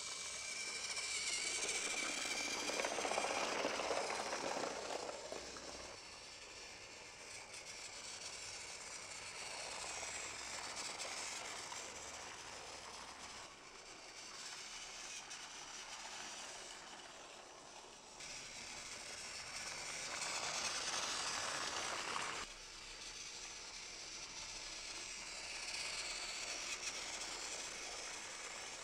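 Battery-powered Trackmaster toy trains running on plastic track: small electric motors whirring with the wheels running along the track, the sound jumping suddenly in level a few times.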